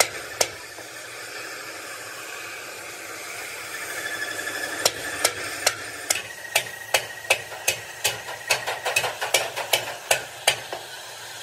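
Hammer blows on steel plate in a fabrication shop: two strikes right at the start, then from about five seconds in a run of about fifteen sharp strikes that quicken toward the end, over a steady workshop hiss.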